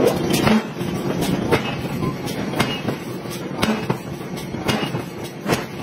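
Forge shop machinery running with a steady clatter, broken by sharp metallic clanks about twice a second at uneven intervals.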